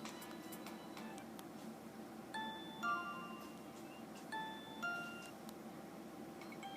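Alcatel A205G cellphone's built-in ringtone playing from the phone's small speaker: a chime-like melody of short notes, its phrase repeating about every two seconds.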